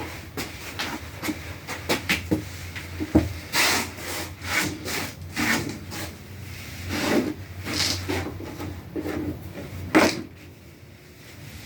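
Wood being scraped and rubbed by hand in irregular strokes, with light knocks in between, then quiet after about ten seconds. No power saw is running.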